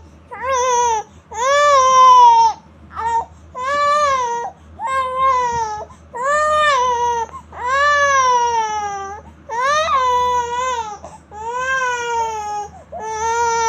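Infant crying: about ten high wails in a row, each rising then falling in pitch and lasting up to about a second and a half, with short gasps between them.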